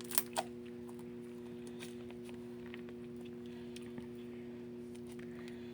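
Homemade glue slime handled in the hands, giving a couple of small sharp squishy clicks about a quarter and half a second in, then only faint ticks, over a steady electrical hum.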